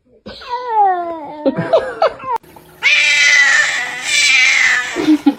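Domestic cat meowing and yowling: a wavering call that falls in pitch, a sudden break, then a longer, louder yowl.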